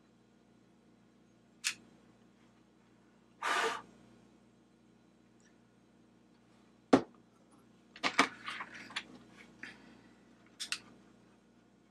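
Hand tools handled on a workbench: a click, a short hiss, then a sharp knock of a tool set down on the bench, followed by a quick rattle of metal pliers being picked up and worked.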